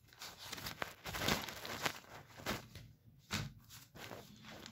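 Irregular rustling of paper textbook pages being handled and shifted, in short scraping bursts.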